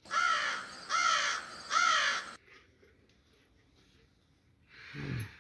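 Crow cawing three times, harsh calls about a second apart.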